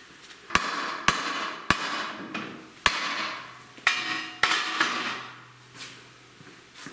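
Hammer tapping a vehicle's drive shaft to knock it loose once its four retaining bolts are out: about six sharp metal strikes over the first four and a half seconds, each ringing briefly.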